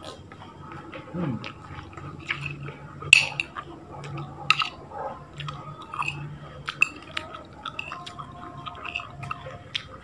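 Eating sounds: a metal spoon clinking and scraping against a glass plate, with mouth chewing. Sharp clinks recur irregularly, the loudest about three seconds in.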